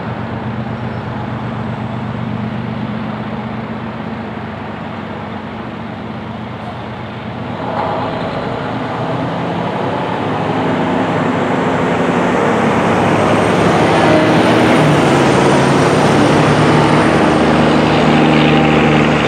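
A heavy vehicle's engine running with a steady hum, growing louder from about eight seconds in and staying loud near the end.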